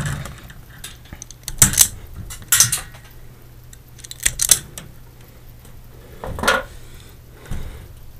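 Self-adjusting wire stripper snapping shut on a red wire, cutting it and stripping the insulation: sharp metallic clicks, mostly in close pairs, a few times over.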